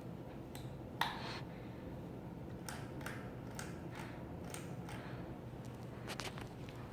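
Very wobbly ceiling fan with loose blades running: a steady low hum with sharp clicks, about two a second, and one louder knock about a second in.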